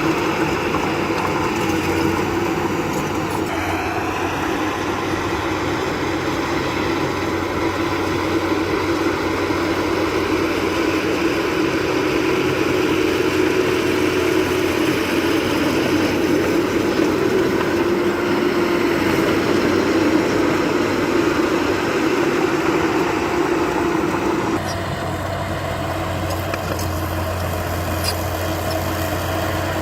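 Heavy earthmoving machinery's engine running steadily under work, with a steady drone. About 25 seconds in it drops a little and settles into a steadier, lower hum.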